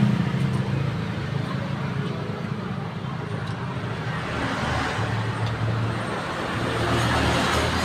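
Road traffic: passing vehicles' engines and tyre noise, a steady rumble that grows louder near the end as a vehicle goes by.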